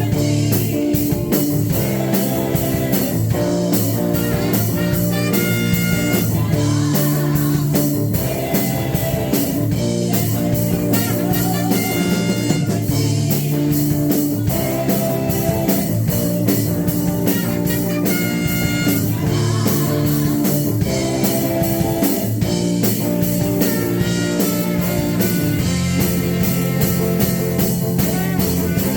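Live praise-and-worship band music with guitar and drum kit playing a steady beat under sustained chords.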